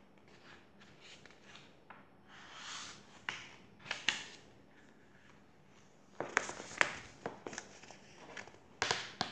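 Pages of a paperback picture book being turned and handled: a string of paper rustles and light taps, with a louder cluster about six to seven seconds in and another near the end.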